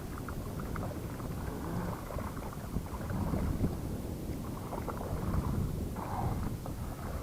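Wind buffeting the microphone, with scattered light knocks and rustles.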